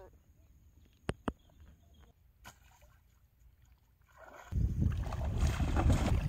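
Quiet at first, with a few faint clicks; about four and a half seconds in, loud churning and splashing water begins as a hooked rohu thrashes at the surface, with wind rumbling on the microphone.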